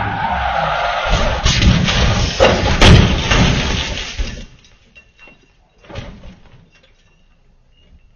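A car crash: a loud rush of engine and tyre noise with hard impacts about one and three seconds in, the loudest near three seconds. The noise stops suddenly about four and a half seconds in, and a single thud follows about six seconds in.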